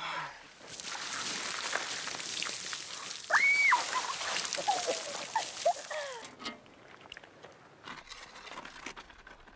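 Water poured from a bucket splashing over people's heads and bodies, with a high excited cry and voices about halfway through. After about six seconds the splashing stops and only a faint outdoor hush remains.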